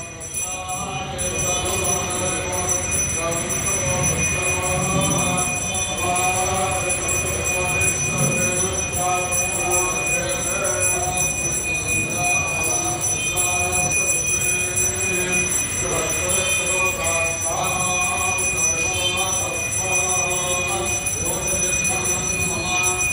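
Hindu ritual hand bell (ghanta) rung without a break, a steady high ringing held throughout, over voices chanting or singing.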